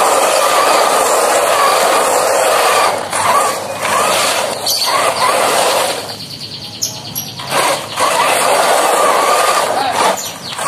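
Subotech BG1513 1/12-scale RC buggy's electric motor and gear train whining under throttle as it drifts on wet asphalt, easing off briefly a few times and dropping away for about a second and a half past the middle.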